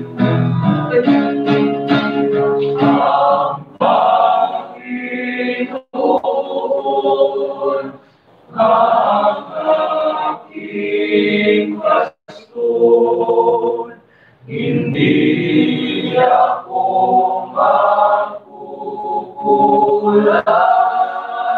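Small male choir singing together in phrases, with short breaks between them.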